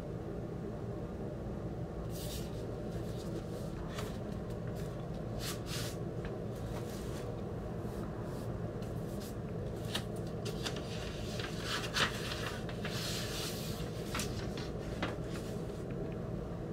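Handling of a vinyl record's cardboard jacket and paper sleeves: scattered rustles, taps and clicks, the sharpest knock about twelve seconds in, over a steady low hum.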